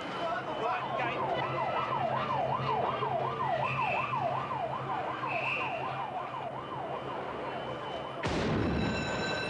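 Emergency vehicle siren wailing fast, rising and falling about three times a second, fading after about seven seconds. About eight seconds in, a sudden louder rush of noise cuts in, carrying a steady high tone.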